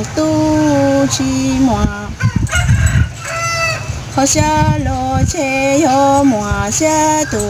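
A woman singing kwv txhiaj, Hmong sung poetry, unaccompanied. She holds long notes that step and slide downward at the ends of phrases, and a higher, shorter call breaks in about three seconds in, over a low rumble.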